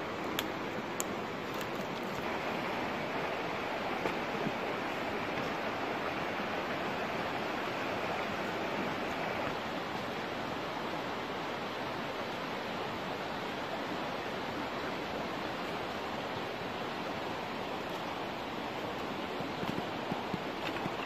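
Steady rushing outdoor noise with no clear pitch, with a few light clicks in the first couple of seconds and again near the end.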